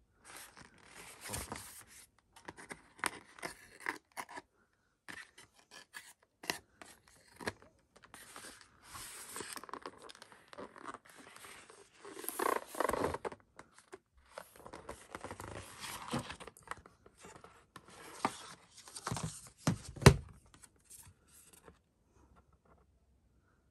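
Cellophane wrap crackling and tearing as it is stripped off a cardboard eyeshadow palette box, then the box being opened and its card insert handled, with irregular rustles and scrapes. About twenty seconds in there is one sharp knock, the loudest sound.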